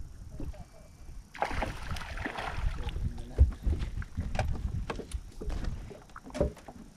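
A hooked bass being landed beside a fishing boat: a brief rush of noise about a second and a half in, then a run of knocks, clicks and low thumps as the fish is played and netted.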